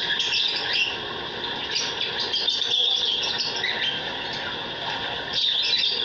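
Small caged birds in a mixed aviary chirping and chattering in quick high bursts that come and go.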